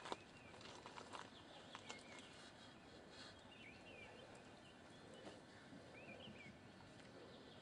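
Near silence: faint outdoor background with a few short, high bird chirps and occasional small clicks, the sharpest click right at the start.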